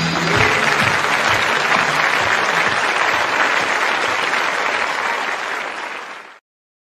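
Audience applause right after a song ends, slowly fading and then cutting off abruptly about six seconds in.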